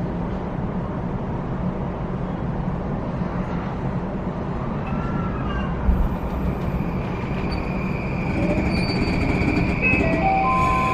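Interior of an E235 series 0 Yamanote Line train: a steady running rumble with a thump about six seconds in. From about eight seconds, the SiC VVVF inverter's traction-motor tones come in, jumping between several pitches in steps as the train powers up. This is the beeping whine nicknamed the 'microwave oven' running sound.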